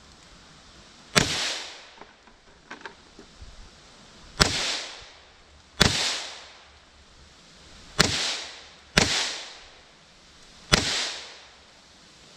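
Six .22 Magnum gunshots at uneven intervals, each sharp crack followed by a short fading echo, with a few small clicks between the first and second shots. The rounds had sat outside in water for about ten weeks and still fire.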